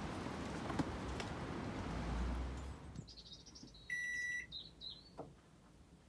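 Steady outdoor background noise for about three seconds. Then comes a single short electronic beep about four seconds in from the Thetford three-way fridge's control panel as it switches power source from gas to mains, with a few faint bird chirps around it.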